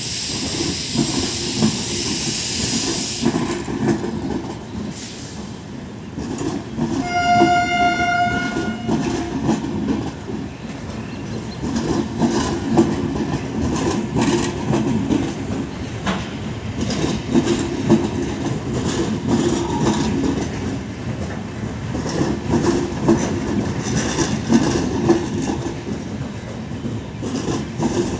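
Coaches of a departing express train rolling past, a steady rumble with recurring wheel clatter over the rail joints. A train horn sounds once for about two seconds, a quarter of the way in, and a steady hiss fills the first three seconds.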